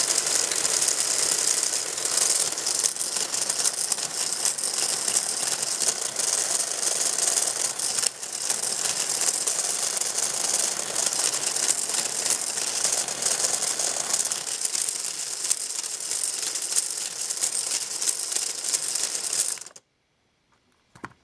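Lego Technic gear train and flywheel governor, driven by a Power Functions L-motor geared up for speed, running fast with a dense plastic rattle and whir. It stops abruptly near the end as the motor is switched off at the remote.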